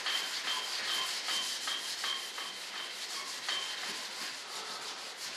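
Sandpaper rubbing by hand over the primed surface of a fiberglass model-jet wing in quick, repeated back-and-forth strokes. This is light guide-coat sanding, which shows up dips and waves before painting.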